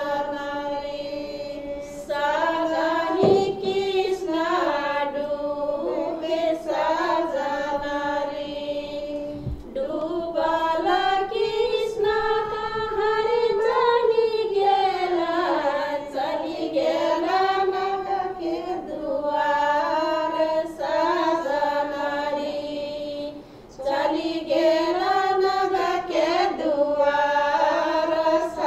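Women singing a Tharu folk song for the Jitiya festival, with coronavirus-awareness lyrics, their voices holding long notes.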